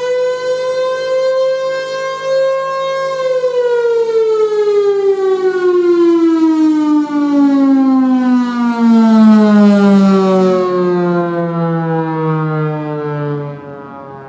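Federal Signal Thunderbolt 1000 civil defense siren, with a Sutorbilt roots blower and single-tone chopper, holds its tone for about three seconds and then winds down, its pitch falling steadily as it shuts off at the end of a test. A brief hiss comes about nine seconds in, and near the end the tone drops away sharply in loudness while still sliding lower.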